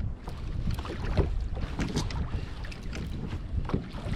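Wind rumbling on the microphone aboard a fishing kayak at sea, with scattered small knocks and clicks of handling on the boat.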